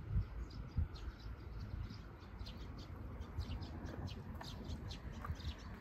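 Small birds chirping in short, quickly repeated notes, thicker from about halfway through, over a low rumble.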